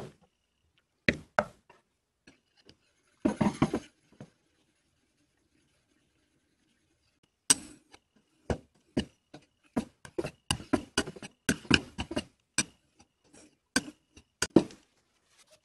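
A few knocks and a brief scrape as a sharpening stone in its wooden box is set out on the workbench. About halfway in, a narrow plow plane iron is honed on the oiled stone: an irregular run of short scrapes and clicks, a few each second.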